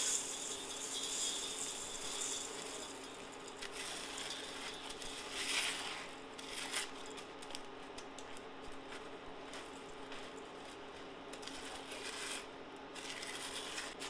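Small clinks and rattles of kitchen utensils or dishes being handled over a steady low hum, with two brief rushes of hiss, one about halfway through and one near the end.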